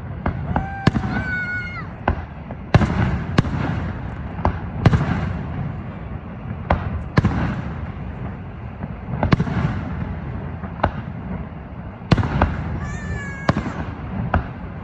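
Fireworks display: more than a dozen sharp bangs at irregular intervals, some closely paired, with brief whistling glides between them twice.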